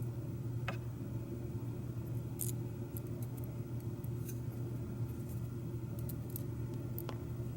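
Small metal parts of a Schlage lock cylinder being handled: scattered light metallic clicks and ticks, half a dozen over several seconds, over a steady low hum.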